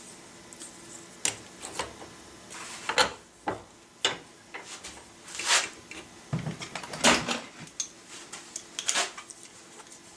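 Steel mandrel, thimble and bench vise being taken apart by hand: irregular metal clinks and knocks, a dozen or so, with short quiet gaps between.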